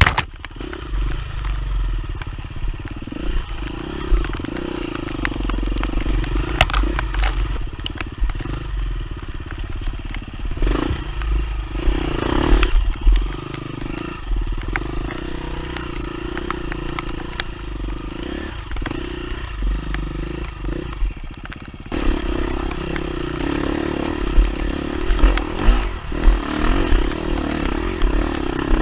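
Off-road dirt bike engine running steadily as the bike rides a rough trail, with scattered clatter and knocks from the bike over the ground.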